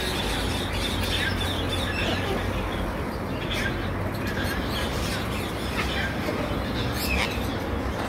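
Caged birds at a bird market giving short chirps and squawks every second or so over a steady background din.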